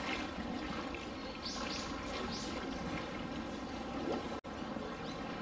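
Water running and trickling steadily, with three short hissing splashes near the middle. The sound drops out for an instant near the end.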